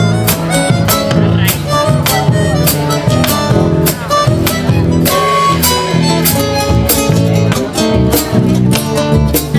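Instrumental music with sharp, fast attacks about three to four times a second and clashing, beating tones meant to suggest cats scratching in a fight.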